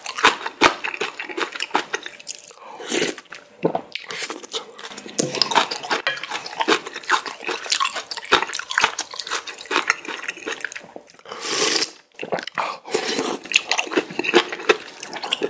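Close-miked eating of spicy ramen noodles and chonggak radish kimchi: continuous wet chewing and mouth clicks with crunchy bites, and a couple of longer slurps.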